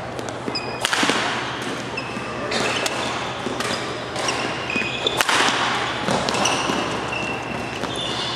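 Badminton rally: a racket strikes the shuttlecock with a sharp crack every second or two, while players' shoes squeak briefly on the court floor.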